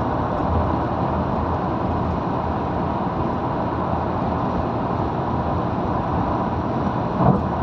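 Steady road and wind noise of a car travelling at highway speed, heard from inside the car, with a brief knock near the end.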